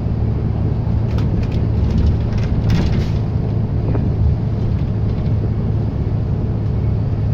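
Diesel bus engine running steadily with a low hum, with a few faint clicks or rattles about a second to three seconds in.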